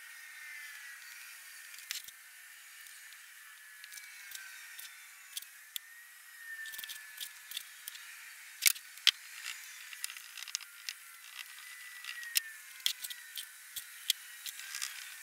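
Green molding sand being dropped by hand into a wooden casting flask around steel sprue pipes: scattered small ticks, knocks and patters of clumps and grains landing, with two sharper knocks close together just under nine seconds in.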